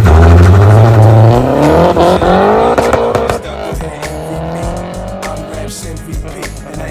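A Mazdaspeed's turbocharged four-cylinder engine accelerating hard, its pitch rising for about three seconds, dropping suddenly at a gear change, then rising again; this is a full-throttle test pull on a newly fitted boost controller. Music plays over it.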